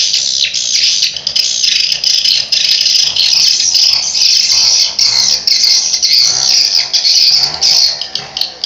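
Swiftlet lure call, the recorded 'suara panggil' played from a swiftlet house's speakers: a loud, dense, continuous high-pitched twittering chatter of swiftlet chirps.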